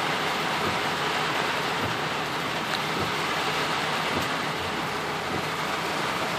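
Heavy rain falling on a car's roof and windshield, heard from inside the car: a steady, even hiss.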